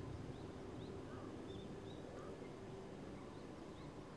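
Small birds chirping, short rising chirps repeated about every half second, over a steady low rumble.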